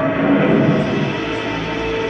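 Music soundtrack with several steady held notes layered over a dense texture.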